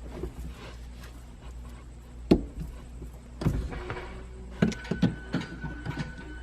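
Needle-nose pliers working at the clutch pedal return spring: scattered metal clicks and knocks, in clusters in the second half, with a thin squeak-like tone near the end.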